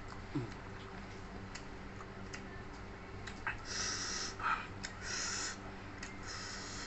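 Close-up eating sounds: small wet clicks and smacks of chewing, with three short breaths or sniffs through the nose in the second half, over a steady low electrical hum.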